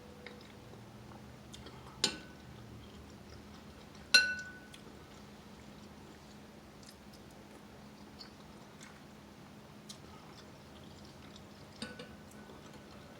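Kitchen dishes and utensils clinking: a sharp clink about two seconds in and a louder one about two seconds later that rings briefly, then a few faint taps, over a low steady hum.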